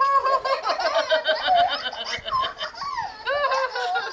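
A young child laughing with a high-pitched voice, on and on with short breaks.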